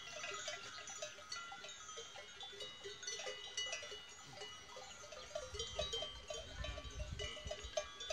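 Many small bells on a grazing goat herd clanking and tinkling irregularly.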